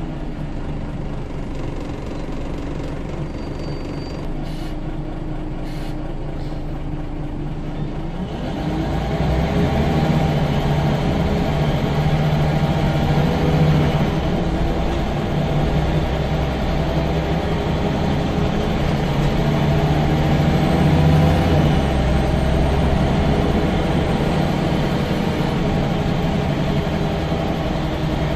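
Scania L94UB bus engine, heard from inside the saloon: running steadily and quieter at first, then about eight seconds in it gets clearly louder and lower-pitched as the bus pulls away under power, and keeps pulling at that level.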